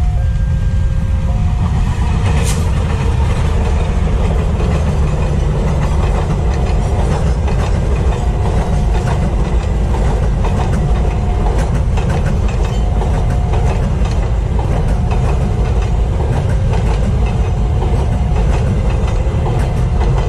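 Passenger train coaches rolling past close by: a steady loud rumble with the clack of wheels over rail joints. Short electronic tones from the level-crossing warning signal repeat over it.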